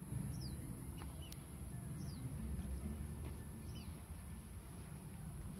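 A bird repeats a short, falling whistled call about every second and a half, four times. Underneath run a steady low rumble and a steady high-pitched hiss.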